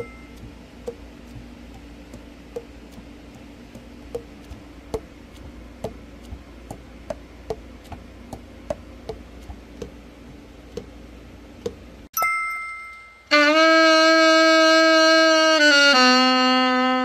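Alto saxophone keys pressed and released in turn, the pads clicking shut on the tone holes over a low steady hum. A chime rings about twelve seconds in. Then the saxophone plays a long held note that steps down to lower notes near the end.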